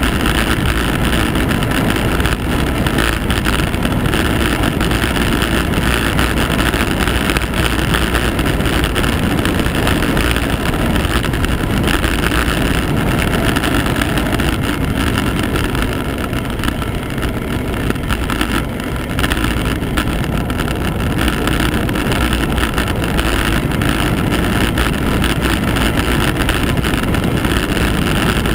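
Steady wind rush on a mounted camera's microphone during a fast descent of a mountain road, easing slightly about halfway through.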